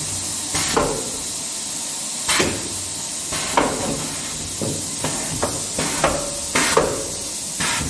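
Irregular sharp metallic knocks and clanks, about ten of them, some ringing briefly, over a steady hiss, from work on the steel arch frame of a refractory brick lining machine inside a cement kiln.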